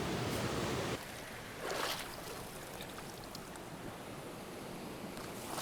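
Small mountain creek flowing, a steady wash of running water; it drops a little in level about a second in.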